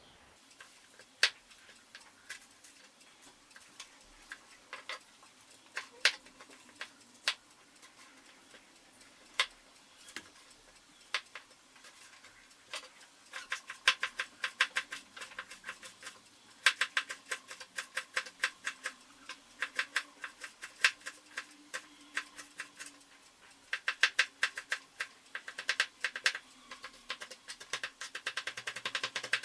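Kitchen knife cutting green chili peppers on a plastic cutting board: single sharp cuts about once a second at first, then, from about halfway in, fast runs of chopping taps as the peppers are minced finely.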